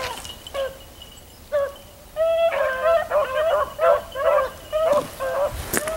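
A pack of beagles baying as they work out a scent trail. A few single voices come early, then from about two seconds in several hounds give tongue together in quick overlapping calls.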